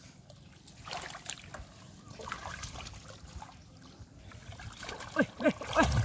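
Hands splashing and sloshing in shallow muddy water while groping for fish in the mud. Small scattered splashes at first, growing louder and busier near the end.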